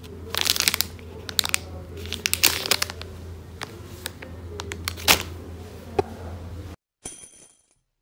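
Foil anti-static bag crinkling and crackling in a hand as it is held up and turned over, in irregular sharp bursts over a low steady hum. The sound cuts off suddenly near the end.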